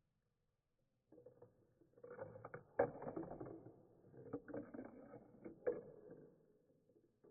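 Marbles rolling and rattling down a small marble run, with several sharp clacks as they knock against the track or each other; the rolling starts about a second in and dies away near the end.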